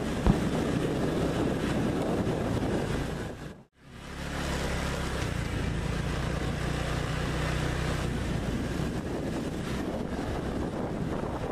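Wind buffeting the camera microphone over a steady low rumble as the camera travels. There is a single knock just after the start, and the sound cuts out briefly about four seconds in.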